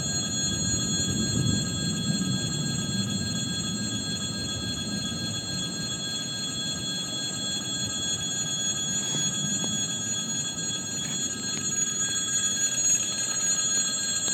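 Low rumble of an electric train on the line, strongest in the first two seconds, under several steady high-pitched ringing tones that hold unchanged throughout.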